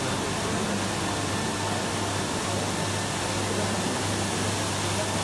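SAFRAN industrial automatic carpet-washing machine running, its rotating brushes scrubbing a rug as it feeds through: a steady noise with a constant low hum underneath.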